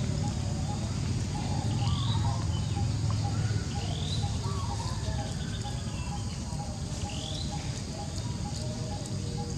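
A bird gives three short rising chirps, a couple of seconds apart, over a steady low rumble and fainter repeated background notes.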